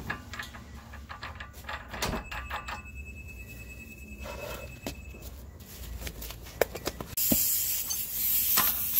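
Small metal clicks and rattles as the new axle nut is threaded by hand onto the Nissan Elgrande E51's front axle shaft, then about seven seconds in a steady high hiss of compressed air begins and grows louder, from the air impact wrench's line.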